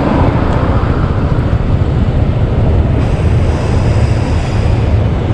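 Steady wind rumble on the microphone of a moving Honda PCX scooter, mixed with its running and road noise in city traffic.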